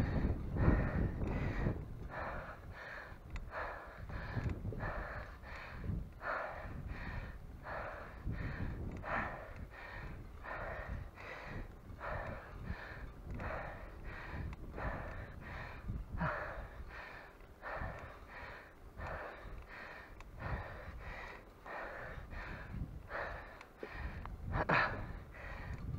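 A cyclist's heavy, laboured breathing under hard exertion, about one loud breath a second.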